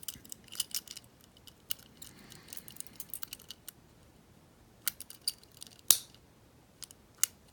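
Small metallic clicks and scrapes of a warded pick working inside a 1950s Master padlock, with a sharper click about six seconds in.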